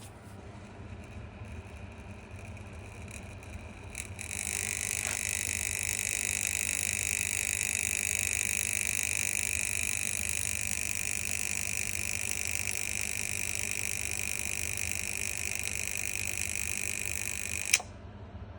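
A low hum runs throughout. About four seconds in, a click sets off a steady hiss with a high whine, which runs for about thirteen seconds. It stops abruptly with a sharp snap near the end: a BTicino Magitik 16A single-pole magnetothermal circuit breaker tripping on overload and cutting power to the load.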